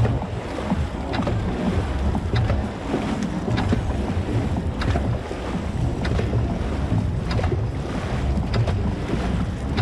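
Dragon boat being paddled, with water wash and wind buffeting the microphone, and a short sharp stroke sound about every 1.2 seconds in an even rhythm.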